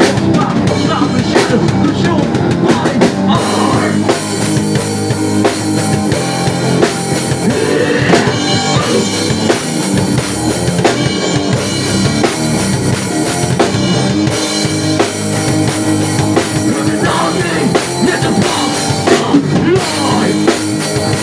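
Rock band playing live without vocals: a drum kit with a driving bass drum and cymbals, under electric guitar.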